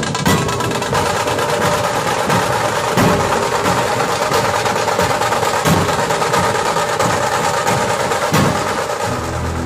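Street band music: horns playing held notes over drums and cymbals, with a heavy drum stroke about every two and a half seconds, four times.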